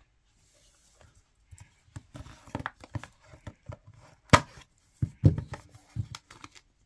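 Hands handling a shrink-wrapped trading-card booster box on a playmat: a run of light knocks, taps and plastic scratches, with one sharp knock about four seconds in.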